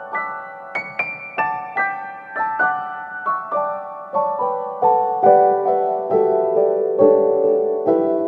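Background music: a solo piano playing a gentle melody of single notes, about two or three a second, the line stepping down in pitch.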